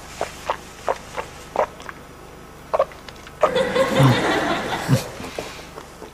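A few short separate sounds, then, about three and a half seconds in, a swell of studio-audience laughter lasting about two seconds.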